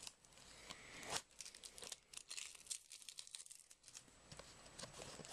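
Packing tape being pulled and torn off a cardboard mailing box, with faint crinkling and rustling of the packaging and a louder rip about a second in.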